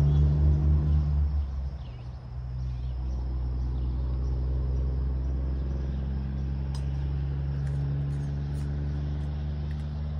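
An engine running with a steady low hum; it drops in level about two seconds in, then carries on steadily.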